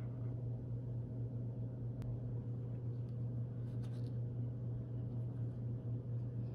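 Steady low hum of a running fan or appliance in the room, with a few faint clicks about two and four seconds in as the stitched leather sheath is handled.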